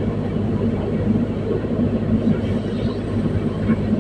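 Komatsu PC210-10 excavator's diesel engine running steadily with a constant low hum.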